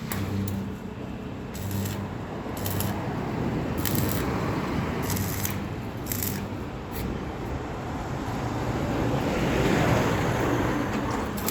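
Electric arc welding in short repeated bursts, each about half a second to a second long: a crackling hiss over the low hum of the welding machine, typical of tack welds on steel pipe. A broader, louder noise swells about nine to ten seconds in.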